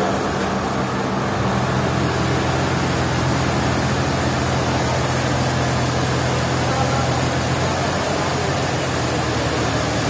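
Forklift engine running steadily while it pushes a huge, heavy tree root along the sawmill carriage; its hum settles to a lower pitch about a second in.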